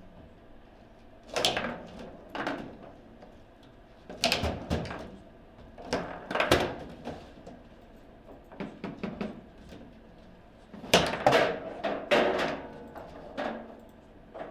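Table football (foosball) in play: the hard ball clacking off the plastic figures and the table walls, with the steel rods knocking, in irregular clusters of sharp knocks.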